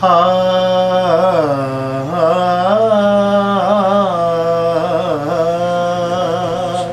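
A man's voice singing a naat unaccompanied: one long, drawn-out phrase of held notes that bend up and down, starting abruptly and tailing off near the end.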